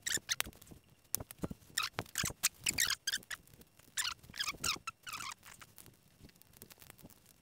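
Corrugated plastic split conduit being worked around a car wiring loom: a run of short scraping, rustling strokes with light clicks, dying down after about five seconds.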